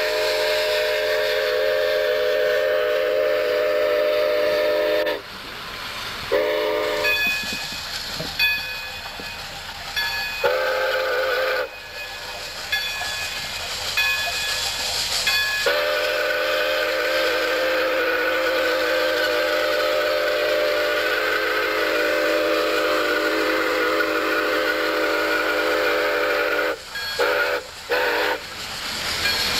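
Chime steam whistle of Pere Marquette 1225, a 2-8-4 Berkshire steam locomotive, blowing a series of blasts: a long blast, two short ones, then one held about eleven seconds, ending in a few quick toots. It is the whistle signal for a grade crossing.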